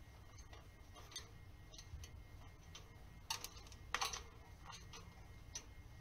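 Faint, scattered clicks and taps from an African grey parrot moving about its wire cage, with two sharper clicks about three and four seconds in.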